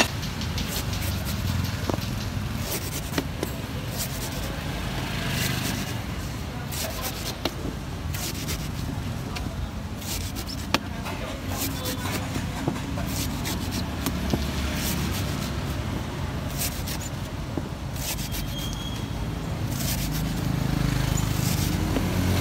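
Knife shaving and scraping the husk off a young green coconut in short, irregular strokes with sharp clicks, over a low steady rumble of street traffic.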